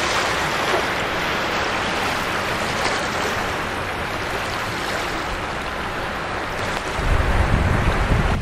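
Small waves washing over a beach of coarse sand and shell grit, a steady hiss. About seven seconds in, a low rumble of wind on the microphone takes over.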